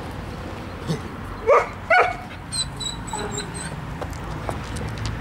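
A dog barking twice in quick succession, about half a second apart, about a second and a half in.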